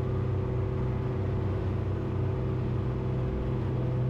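Twin Selva White Whale 300 EFI outboards, 4.2-litre V6 engines, running steadily with the boat under way, an even note that does not change.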